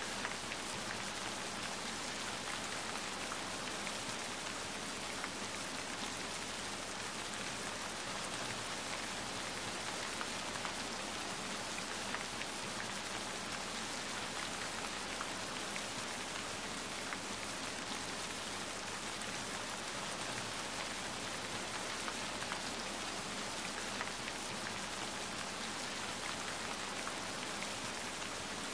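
Steady rain falling on wet pavement: an even hiss with faint scattered ticks of drops.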